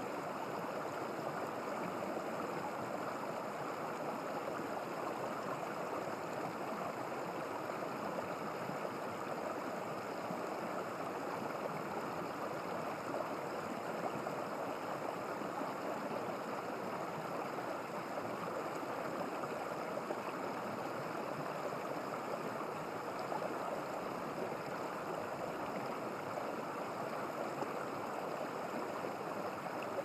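A small, shallow mountain stream running over limestone rocks and stones: a steady rushing and burbling of water.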